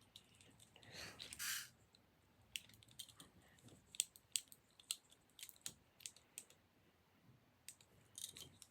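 Faint, irregular clicks and taps of small plastic fidget toys being handled, with a short rustle about a second in.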